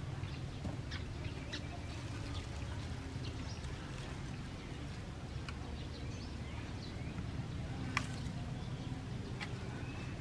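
Outdoor ambience: a steady low rumble with faint, scattered bird chirps, and one sharp click about eight seconds in.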